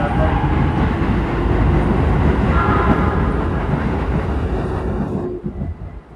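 Keikyu 600 series electric train pulling into the platform: loud rolling and wheel noise with a brief whine about two and a half seconds in. The noise falls away quickly about five seconds in.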